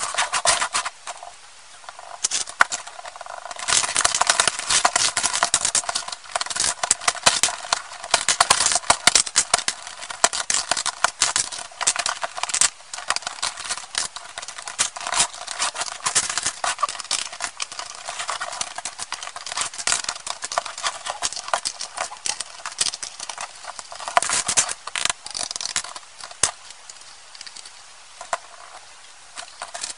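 Plastic Lego bricks clicking and clattering as they are pressed together, pulled apart and sorted, a fast, dense run of small clicks, sped up.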